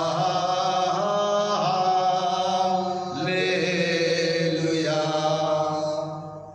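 A single voice singing a slow, chant-like hymn in long held notes, shifting pitch between phrases, with a brief pause for breath near the end.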